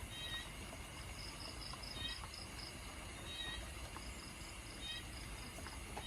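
Light rain at night, a steady wash with scattered drips, under insect calls: a cricket trills in two pulsed runs, and short chirps repeat about every second and a half.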